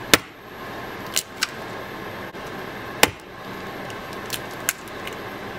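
Eggs being tapped and cracked against the rim of a mixing bowl: a handful of short, sharp taps and cracks, the loudest about three seconds in, over steady faint background noise.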